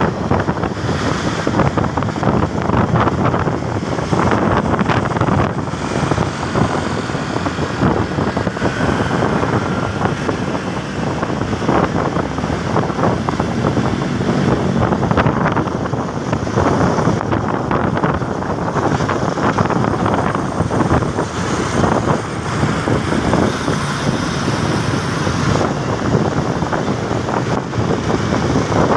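Steady wind noise on the microphone over a running motorcycle engine and the surrounding road traffic, heard while riding on the motorcycle.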